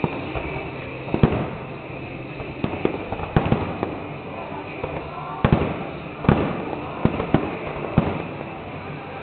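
Fireworks display: a dozen or so sharp bangs of bursting shells at irregular intervals, each trailing off briefly, with the loudest bangs about a second in and just past halfway.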